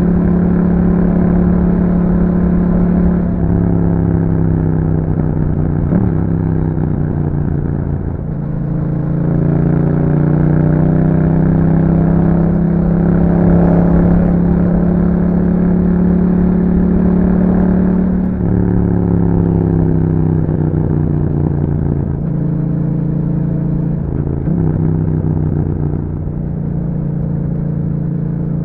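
Yamaha MT-07's parallel-twin engine running through an Akrapovic exhaust, held at fairly steady revs with several brief dips and rises in pitch as the throttle and gears change.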